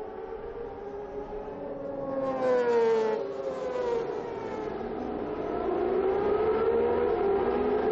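A pack of 600cc racing motorcycles at high revs, their engine notes sliding up and down in pitch over one another. About two to three seconds in, the loudest note falls in pitch, and near the end the sound swells again as the pack comes on.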